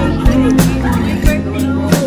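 Music: a song with a steady beat over a sustained bass line.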